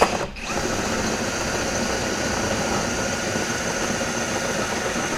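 Cordless drill turning a 5/16-inch bit through a license plate into the metal bumper behind it, enlarging a pilot hole. A short spurt, a brief pause about a quarter-second in, then steady drilling.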